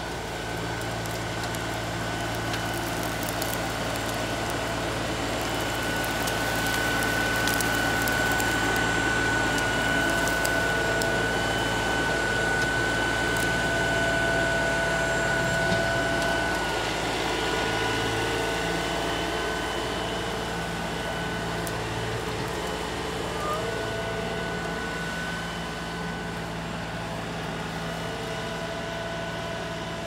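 LS XR3135 compact tractor's diesel engine running under load as the front loader bucket pushes brush and soil, with a steady high whine over it. The engine grows louder for several seconds in the middle, then eases back.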